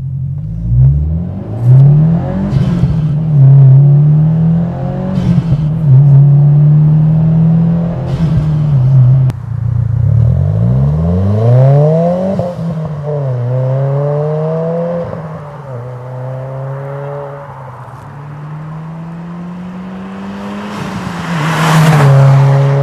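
2022 Subaru WRX's turbocharged 2.4-litre flat-four engine revving through an Invidia R400 exhaust, with a bassy note. It gives a series of short rev blips, then one longer climb and fall about halfway through, and a loud rushing noise near the end.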